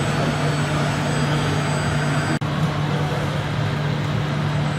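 Radio-controlled construction trucks running: a steady mechanical running noise with a constant low hum. It drops out for an instant about halfway through.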